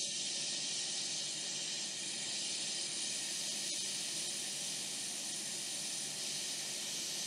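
Hot air rework station nozzle blowing a steady hiss of hot air onto a laptop motherboard to desolder a capacitor.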